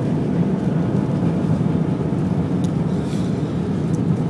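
Cabin noise of an Airbus A320 rolling on the ground just after landing: a steady, loud low rumble of the engines and the wheels on the pavement, heard from a window seat over the wing.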